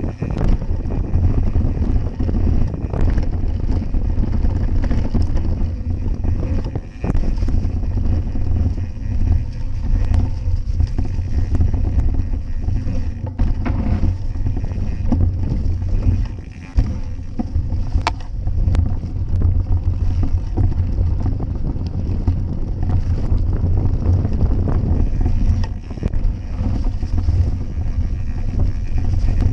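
Wind buffeting an action camera's microphone as a Kellys Eraser 90 mountain bike descends a dirt forest trail, a heavy steady rumble over tyre noise on the dry, leaf-strewn ground. Scattered knocks and rattles come from the bike jolting over bumps, and the rumble dips briefly a few times.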